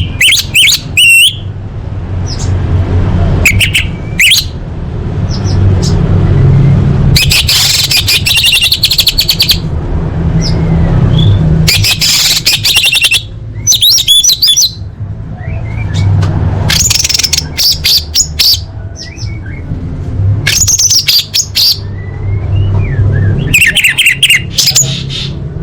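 Orange-headed thrush (anis merah) singing loud bursts of rapid, varied whistled phrases, one every few seconds, over a steady low hum.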